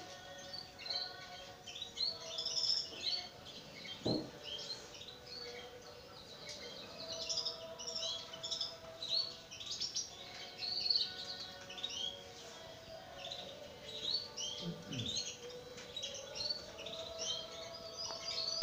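Many small birds chirping busily in the background, with short high chirps overlapping one another without pause.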